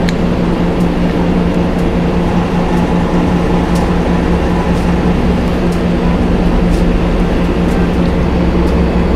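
A steady, loud machine hum with a low pitched drone, unchanging throughout. Faint light clicks now and then from a metal fork working spaghetti in a paperboard tray.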